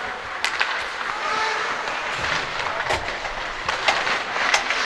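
Ice hockey in play: skate blades scraping the ice, with repeated sharp clacks of sticks and puck.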